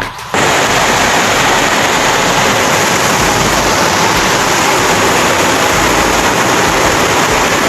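Water spraying hard in a steady, loud hiss, as from a hose or pressure-washer jet used to wash down a greenhouse. It starts suddenly just after the start and cuts off sharply at the end.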